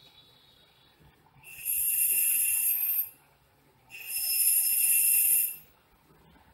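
A pen scratching along a set square on drawing paper as two straight lines are drawn, each stroke about a second and a half long, the second starting about four seconds in.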